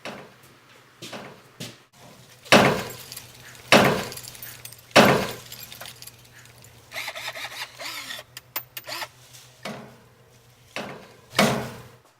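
Clumsy repair work: a string of loud metallic bangs and clatters, with a loud strike at about 2.5, 4 and 5 seconds and another near the end, lighter knocks and rattling between them, and a stretch of higher scraping or squealing about halfway through.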